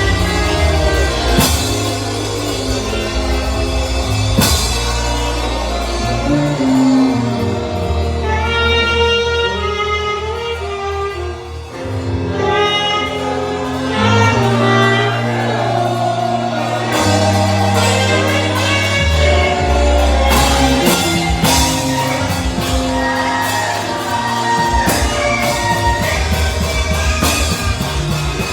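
Live worship band music: drum kit with cymbal crashes, sustained bass notes and a wavering lead melody with singing. The bass drops away briefly near the middle, then the full band comes back.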